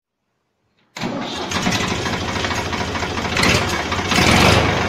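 Ford 3055 tractor's diesel engine, heard from near its exhaust stack, coming in suddenly about a second in and running with a steady low hum. It grows louder twice, briefly, as black exhaust smoke puffs out: engine starting or being revved.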